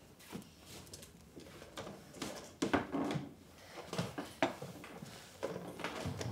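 Black rotary desk telephone being handled and fiddled with: irregular clicks and light knocks of plastic and metal.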